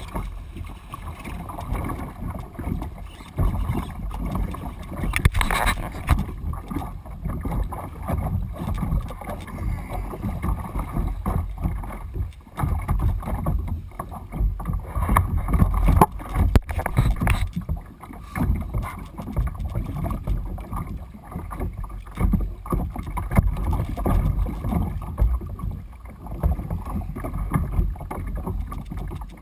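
Wind noise on a GoPro's microphone and water splashing and slapping against the hull of a Malibu Extreme kayak as it is pulled through choppy water by a hooked tarpon, with a few knocks.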